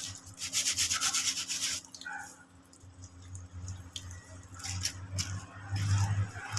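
Hand sanding with sandpaper in quick back-and-forth strokes, typical of scuffing a bicycle disc brake part to clean it and stop brake squeal. The strokes stop about two seconds in, leaving a few fainter scrapes and a low hum.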